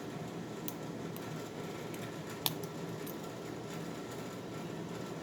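Lock pick and tension wrench working the pin tumblers of an old Eagle Lock Co. padlock: faint metallic ticks and scraping, with one sharper click about two and a half seconds in, over a steady low background hum.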